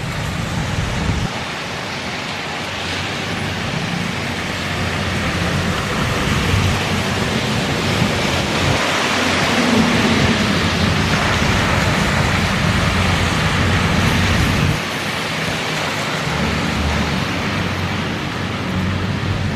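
Steady rain on a wet street mixed with traffic noise and a low, steady engine hum. The noise swells for several seconds in the middle, then drops back about three quarters of the way through.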